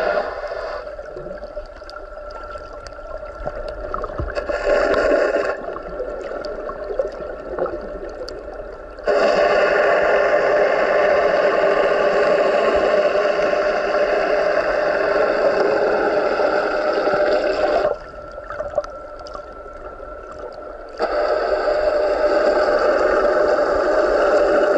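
Boat motor running, heard underwater: a steady hum of several fixed tones that switches abruptly between loud and quieter stretches several times, with faint clicks in the quieter stretches.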